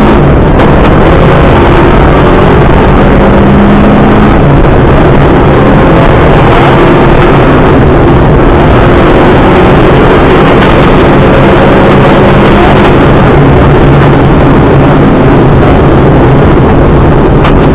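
Subaru Impreza rally car's flat-four engine being driven hard on a special stage, very loud and continuous, its pitch repeatedly climbing and dropping as the car accelerates, lifts and changes gear.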